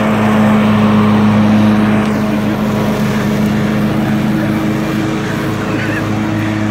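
Riding lawn mower's engine running steadily with an even hum as it drives across the lawn, its blades cutting the grass.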